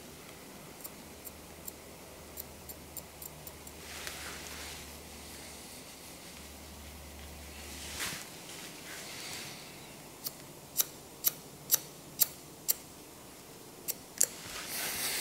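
Barber's scissors snipping short grey hair: a run of light snips, then after a pause louder, crisp snips about two a second, with soft rustles of hands and comb through the hair in between.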